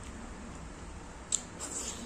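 Eating sounds from hand-mixing rice with fatty pork curry and chewing: one sharp wet click a little over a second in, followed by brief soft squishing.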